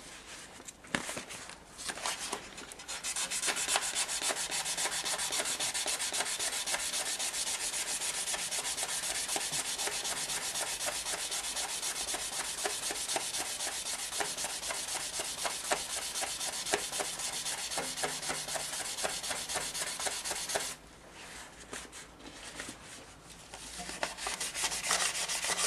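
Sandpaper rubbed by hand on the metal of a BMW F 650 GS exhaust downpipe, in quick, steady back-and-forth strokes. The sanding stops for a few seconds near the end, then starts again.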